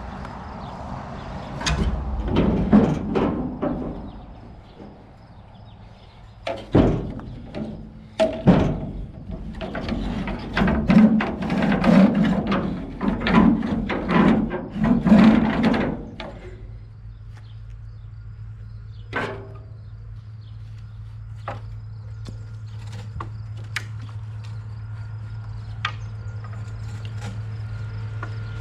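Wood being chopped: a series of heavy thunks as blows land on wood, with two sharp single strikes between the bursts. About halfway through the chopping stops and a steady low hum takes over, growing slightly louder.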